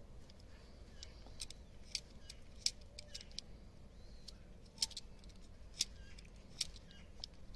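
Utility-knife blade shaving the end of a thin myrtle scion into a wedge for cleft grafting: faint, short, crisp cutting clicks at irregular intervals, roughly one every half second to second.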